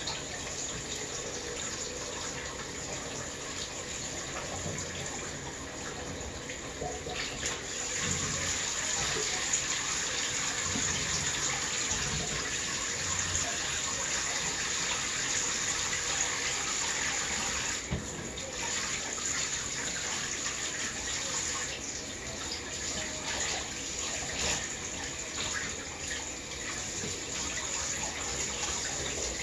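Water running from a handheld shower sprayer into a bathtub, splashing as a dog is washed. The flow gets louder about seven seconds in and drops away for a moment a little past the middle.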